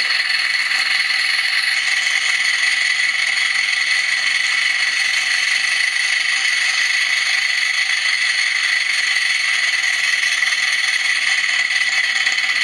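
A 7/8in-scale Accucraft Quarry Hunslet live-steam model locomotive running on a stand, giving a steady hiss from its exhaust as the newly fitted regulator valve is turned.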